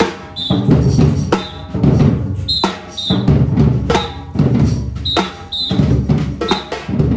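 Carnival bloco percussion: big bass drums and other drums beating a steady rhythm, with a samba whistle blowing repeated short, high-pitched blasts over it.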